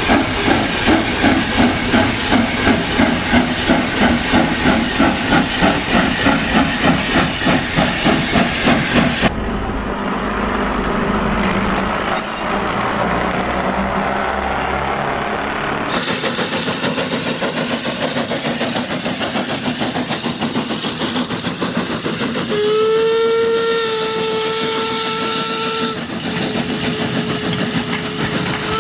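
Steam locomotive sounds: steady chuffing at about two beats a second, breaking off into a hissing rumble. About three-quarters of the way in, a steam whistle sounds one held note for a few seconds, then a fainter tone lingers.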